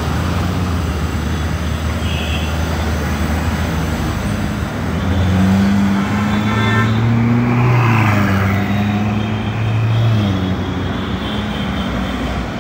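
Ferrari 488 GTB's twin-turbo V8 with a Novitec exhaust, running low and steady in traffic for about five seconds, then accelerating past with its note climbing in pitch, a brief dip about eight seconds in, and dropping away near ten seconds. City traffic noise runs underneath, with a short horn toot about halfway through.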